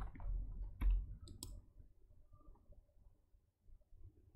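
A few short, sharp clicks of computer input devices in the first second and a half, then quiet room tone.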